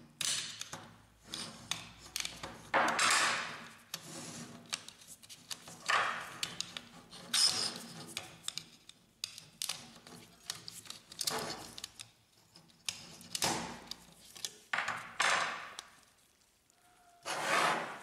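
Flat screwdriver prying and scraping along the plastic cover of a laser printer fuser unit, with irregular rubbing scrapes and sharp plastic clicks as the cover's hooks are worked loose.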